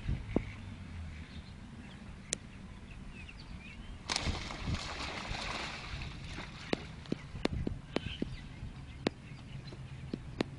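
Ducks scattering on a pond ahead of a swimming dog: a burst of splashing and flapping about four seconds in, lasting about two seconds, with faint bird chirps and scattered sharp clicks.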